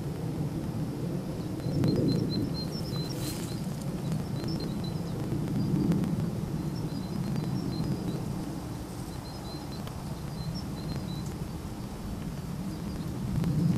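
Low rumble of wind buffeting the microphone, swelling and easing every few seconds, with faint strings of short high chirps in the background.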